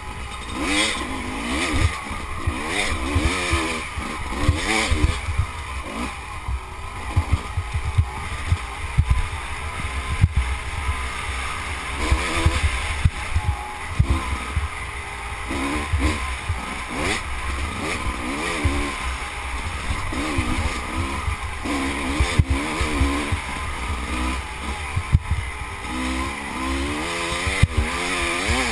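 Off-road racing motorcycle engine being ridden hard, its revs rising and falling over and over as the throttle opens and shuts, with frequent knocks and jolts from the rough ground.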